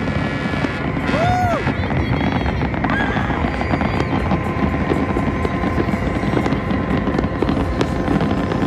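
Aerial fireworks bursting and crackling, a run of sharp pops over a steady rumble.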